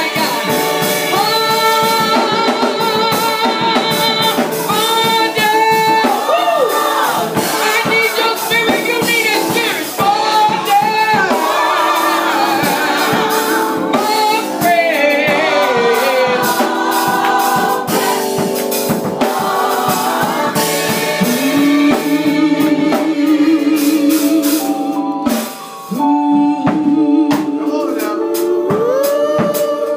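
Live gospel singing: a woman's lead voice through a microphone with a small group of singers behind her, and drums keeping the beat. The sound drops briefly near the end.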